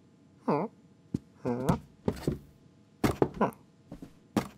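Cartoon cat's human-voiced vocal sounds: a few short mews and chirps that dip and rise in pitch, mixed with sharp taps and light thuds as the cat paws at and climbs onto a small box.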